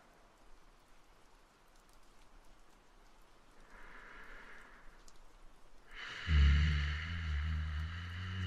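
A man's slow, deep breathing over a faint patter of rain: a soft breath about four seconds in, then from about six seconds a long, deep breath with a low hum in it, like a sleepy sigh.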